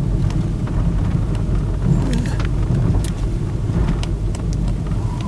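A car driving, heard from inside the cabin: a steady low road and engine rumble, with scattered light ticks and rattles.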